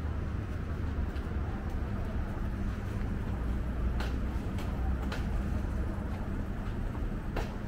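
A steady low mechanical hum, like a distant idling engine, with a few sharp footsteps on the concrete platform about halfway through and again near the end.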